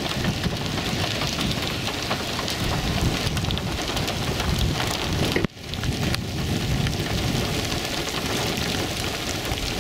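Steady rain falling, an even noise that cuts out for an instant about halfway through.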